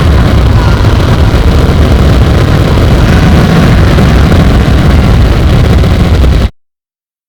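Horror sound effect of demons laughing in hell: a loud, dense mass of low rumble with faint wavering voice-like sounds above it, cutting off suddenly about six and a half seconds in.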